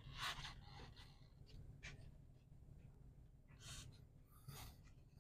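Near silence: a low steady room hum with four or so faint, short hissy sounds, such as small handling noises or breaths.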